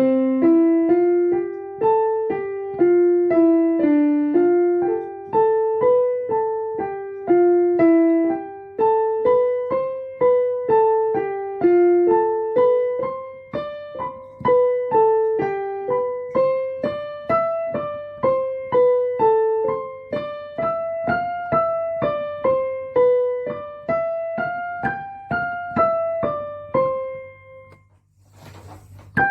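Piano playing a simple melody of single notes, about two a second, rising and falling; the tune stops briefly near the end and then starts again after a short noise.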